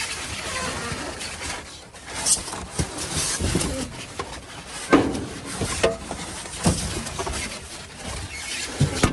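Rustling and scattered knocks of trash being rummaged and handled in a dumpster.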